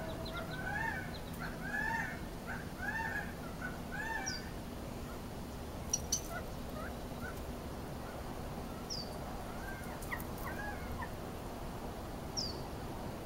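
Gambel's quail calling: a string of short, arching calls about two a second for the first few seconds, then only scattered calls. A few high, thin peeps are mixed in, and there are two sharp clicks about six seconds in.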